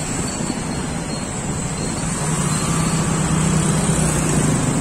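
Street traffic driving through floodwater: motorcycle and auto-rickshaw engines running, with a low engine hum that grows louder about halfway through.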